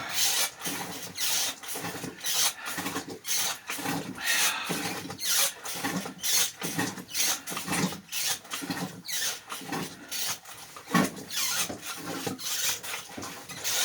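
Hand-worked bilge pump being stroked over and over, about once a second, with a rasping, squeaking rub on each stroke as it pumps out the bilge.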